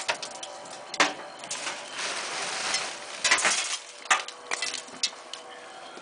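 Crackling and hissing of sawdust catching fire around a red-hot raku pot in a metal reduction can, with a few sharp clicks about one, three, four and five seconds in.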